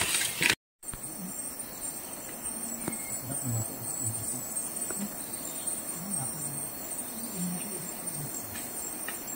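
Forest insects trilling steadily at a high pitch. The sound drops out completely for a moment under a second in.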